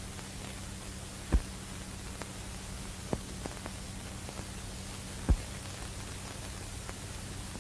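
Steady hiss and low hum of an old film soundtrack, with a few sharp clicks and pops, two of them louder, about a second and a half in and near five seconds in.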